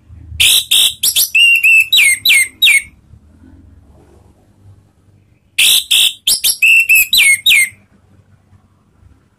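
Orange-headed thrush singing two loud phrases of clear whistled notes, many of them quick downward slurs, the second phrase starting about five seconds after the first. This is the full-volume, open song that Indonesian bird keepers call 'ngeplong'.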